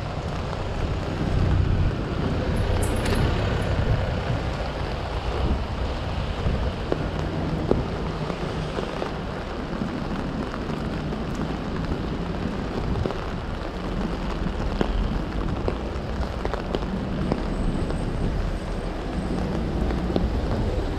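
Rain falling on an umbrella held just above the microphone, scattered drops ticking on the fabric over a steady low rumble.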